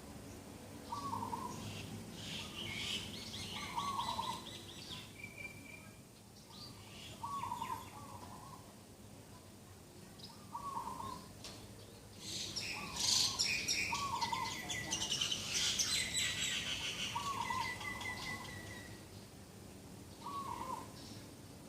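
Several birds singing in the morning: a low two-note call repeats every few seconds, under higher chirps and trills from other birds that grow busiest in the middle.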